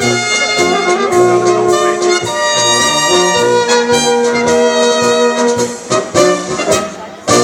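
Czech brass band playing: trumpets and other horns hold a sustained melody over a pulsing tuba bass. About six seconds in, the playing breaks into short, separate notes.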